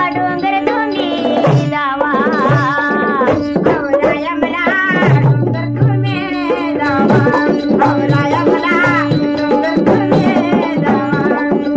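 Indian devotional folk music: a wavering melodic vocal line over a steady drone, with regular hand-drum strokes.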